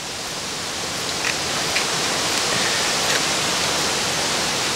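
A steady rushing hiss that swells over the first couple of seconds and then holds, with a few faint ticks.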